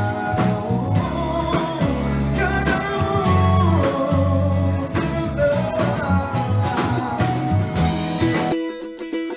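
Music: a song with singing over guitar, bass and drums. About eight and a half seconds in, the bass and drums drop out, leaving a few held notes.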